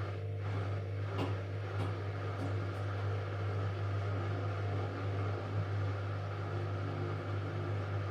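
Indesit washing machine running with a steady low hum and a light rattle, with a few faint ticks; the hum cuts off suddenly at the end.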